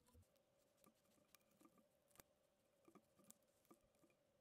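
Near silence, with faint scattered clicks and taps from hands handling 3D-printed plastic robot-arm parts and a small servo.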